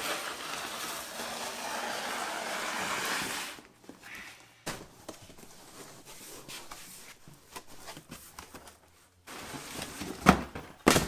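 A large cardboard box scraping over a concrete floor, then its cardboard flaps rustling and crinkling as it is opened, with a few sharp knocks near the end as the black steel winch mounting plate is lifted out of it.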